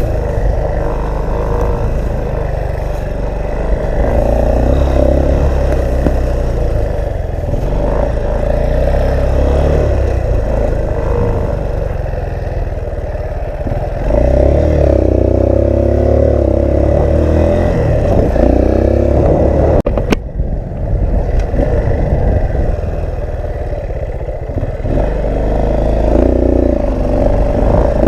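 Motorcycle engine running while riding an off-road trail, with wind buffeting the microphone and some clatter from the ground. The engine gets louder about halfway through as the throttle opens, and there is one sharp knock about two-thirds of the way in.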